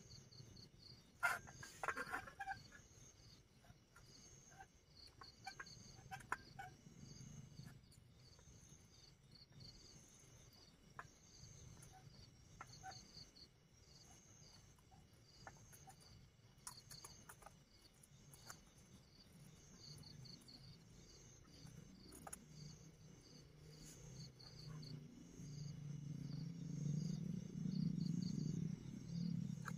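Crickets chirping steadily in rapid, evenly repeating pulses. A spoon scrapes and clicks against an aluminium cooking pot as rice is stirred, loudest about a second in. A low hum swells near the end.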